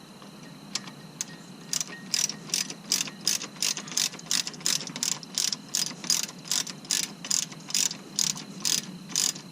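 Hand ratchet wrench clicking as a bolt on the front brake caliper is snugged up, a steady run of sharp clicks about two to three a second.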